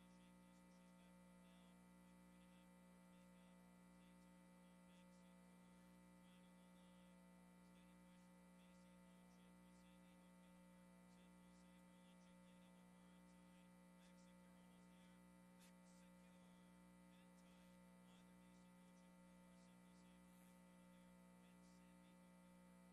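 Near silence with a faint, steady electrical mains hum, made of several even tones.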